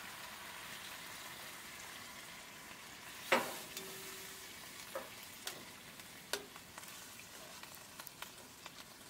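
Venison stock sizzling as it hits a hot enamelled cast-iron Dutch oven of browned rabbit pieces, a steady frying hiss throughout. A sharp knock comes about three seconds in, followed by lighter clicks and taps as the pieces are handled in the pot.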